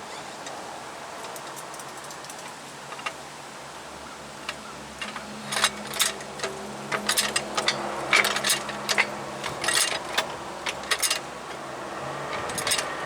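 Irregular metal clinks and knocks of a jack being set under a ball joint stud, with a steady low hum underneath. The clinks come in a busy run from about five seconds in, with a few more near the end.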